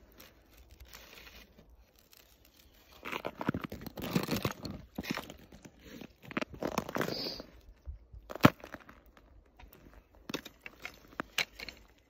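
Irregular crunching and rustling from snow and handling as a wooden ice-fishing tip-up is lifted and its line pulled in by hand, with a sharp click past the middle and a few lighter clicks near the end.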